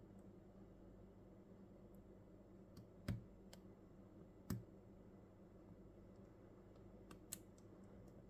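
A few sparse, sharp little clicks from a lock pick working the pins of a 6-pin CES Euro cylinder lock, over a faint steady hum. The two loudest come about three and four and a half seconds in, with a quick pair near the end.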